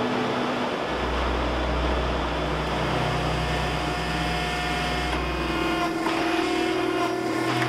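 Hydraulic forging press running with a steady machine drone. A deep hum comes in about a second in and stops about six seconds in while the press squeezes a piece of hot steel between its dies.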